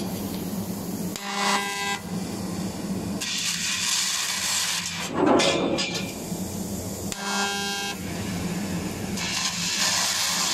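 Laser tube cutting machine cutting holes in a round tube, over a steady machine hum. Twice, about six seconds apart, a short buzzing tone is followed by a couple of seconds of loud hissing as a hole is cut, ending in a brief louder rush.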